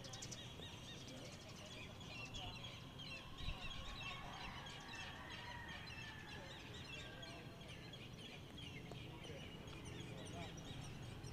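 Many small birds chirping at once in a dense, faint chorus of short rapid calls, over a low steady background hum.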